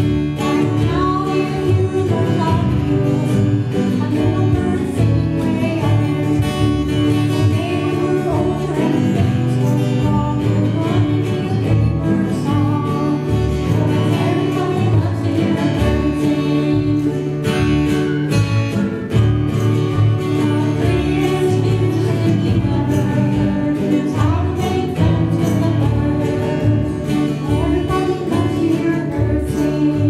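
Live acoustic song: a strummed acoustic guitar and a plucked upright bass accompany singing.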